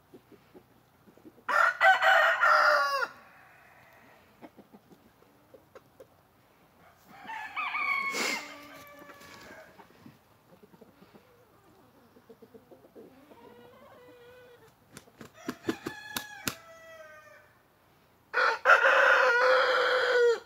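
Roosters crowing about five times. The loudest crows come about a second and a half in and near the end, with fainter crows and calls between.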